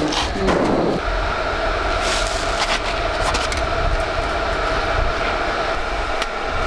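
Stick welding of steel square tubing with a small inverter arc welder: a steady crackling hiss with a constant buzz, settling in about a second in.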